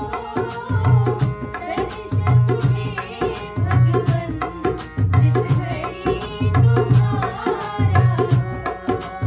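Women singing a Hindi devotional bhajan to dholak and harmonium accompaniment; the dholak's deep bass stroke falls about once a second, with lighter strokes between.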